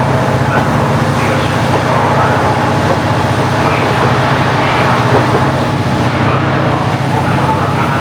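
KiHa 40-series diesel railcar's original DMF15HSA diesel engine running at a steady, even speed, with a constant low hum.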